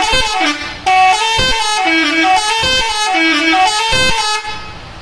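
A bus's multi-tone 'telolet' musical horn playing a short tune of several sustained horn notes. It breaks off briefly about a second in, resumes, and stops near the end.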